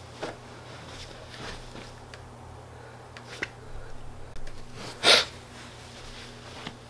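Quiet room with a steady low electrical hum and a few faint clicks and rustles. About five seconds in comes one short, loud rush of breathy noise.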